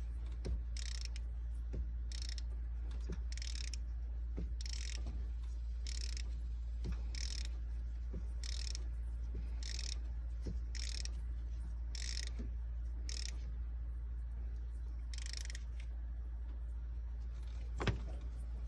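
Ratchet wrench being worked back and forth to tighten a rocker arm bolt on an engine's valvetrain: a short burst of ratchet clicking on each stroke, about one a second, with one sharper, louder click near the end.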